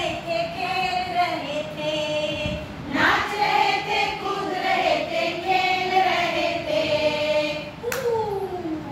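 A group of women singing a Hindi children's rhyme together in a melodic chant, with a short break near the middle. A sharp click sounds near the end.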